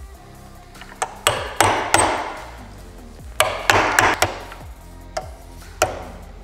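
Hammer blows on a pin punch, driving a steel roll pin out of a shift fork on a Nissan CD009 six-speed manual transmission: sharp ringing metal strikes, one group of four, a second group of four, then two single taps near the end.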